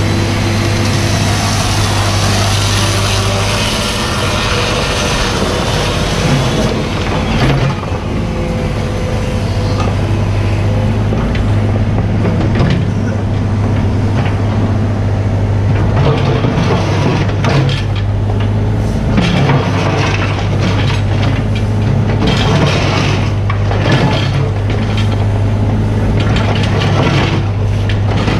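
Mini excavator's diesel engine running steadily, with repeated cracking, scraping and crunching knocks as the bucket digs and breaks up material.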